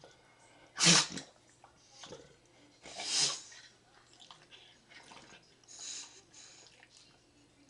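Bulldog sneezing: two loud, sharp sneezes, about a second in and about three seconds in, the first the louder, with smaller sounds between and a fainter burst near six seconds.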